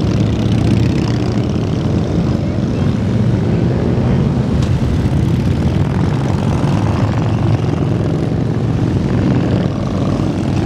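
Many cruiser motorcycles riding past in a long procession, their engines blending into a steady, low-pitched drone that holds level throughout.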